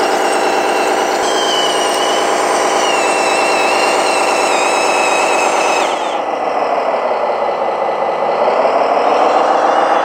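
1/14-scale Stahl/Liebherr 742 hydraulic RC bulldozer running on its electric motors: a steady whine with a fast rattle under it. About six seconds in, the pitch sags, then climbs back up near the end.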